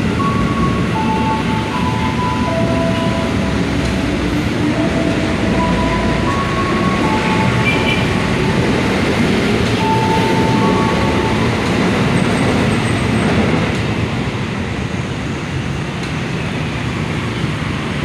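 A train passing close by along the station tracks: a steady, loud rumble of wheels on rail, with short high squealing tones coming and going through the first two-thirds. It eases slightly near the end.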